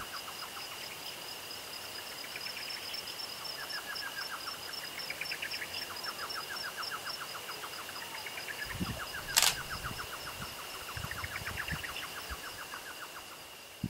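Outdoor dusk ambience: a bird repeating rapid trills, each a quick run of notes lasting a second or so, over a steady high-pitched pulsing hum. A single sharp click comes about two-thirds of the way through, with a few low thumps around it.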